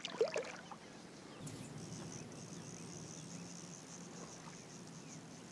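Faint, steady high-pitched trill, insect-like and slightly pulsing, setting in about a second and a half in over a low, steady outdoor hum.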